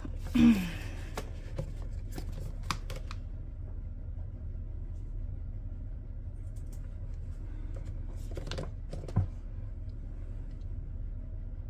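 Paper bills and plastic binder pages rustling as the pages of a cash planner binder are turned, loudest about half a second in, with a few light clicks. After that, mostly a steady low hum, until another brief rustle ends in a soft thump near nine seconds.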